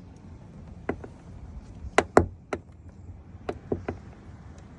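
Door hinge on a 2014 Tesla Model S popping and cracking as the door is moved: about eight sharp, irregular pops, the loudest two close together about two seconds in. The noise comes from the upper hinge with its built-in door-check arm, which the owner takes as needing replacement.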